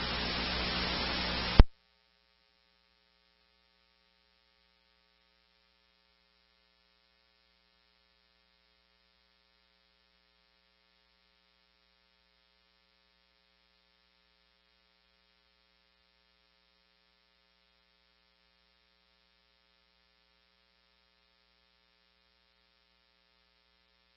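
Scanner radio hissing with static on an open channel, cut off sharply with a click about a second and a half in as the squelch closes. Then near silence with a faint steady hum.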